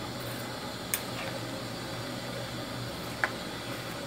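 Pot of sour curry broth packed with lotus stems heating toward the boil: a steady hiss with a low hum, not yet bubbling. Twice, about a second in and near three seconds, a sharp tap of the metal ladle against the pot.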